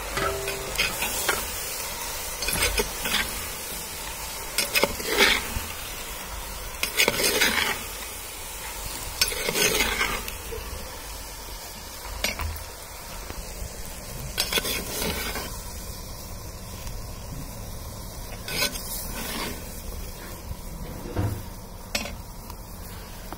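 Potato wedges and greens being stirred and turned in a clay cooking pot with a perforated skimmer ladle: short scraping, clattering strokes every couple of seconds over a steady sizzling hiss.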